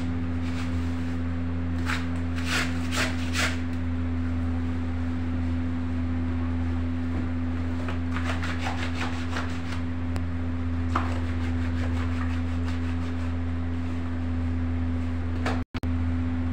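Hands rubbing and scrubbing a wet jacket against a stone floor, in clusters of quick scratchy strokes about two seconds in and again about eight seconds in, over a steady low hum.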